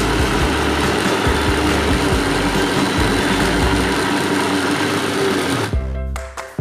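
Electric countertop blender running at speed, grinding chicken meat into a thick bakso paste, then switching off abruptly about six seconds in, leaving background music.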